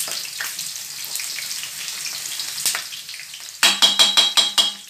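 Food frying in a shallow pan of bubbling oil: a steady sizzle with small crackles. Near the end a loud buzzing tone pulses rapidly for about a second over it.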